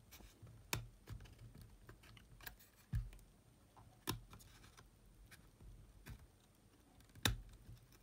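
Light clicks and taps of fingers and a screwdriver on the metal case of a Sony WM-EX900 cassette Walkman as its battery compartment is pried loose. The clicks are scattered, the sharpest about three, four and seven seconds in.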